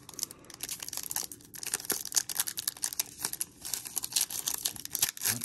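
Foil wrapper of a Panini Illusions trading-card pack crinkling and tearing as it is pulled open by hand: a dense, irregular crackle.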